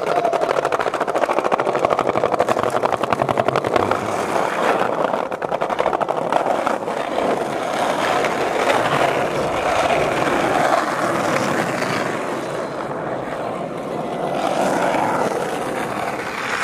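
Skateboard wheels rolling over rough asphalt, heard close up as a steady, gritty rolling noise that eases slightly for a moment before picking up again.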